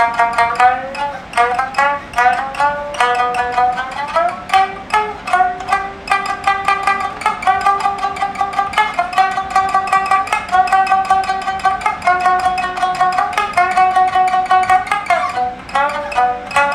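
Shamisen music: a melody of held notes, each sounded by rapid repeated plucking, moving step by step.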